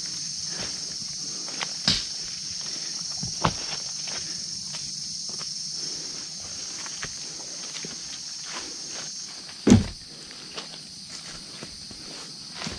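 Footsteps on a forest trail, with a few sharper knocks, the loudest about ten seconds in, over a steady high-pitched drone of insects; part of the insect drone stops about nine seconds in.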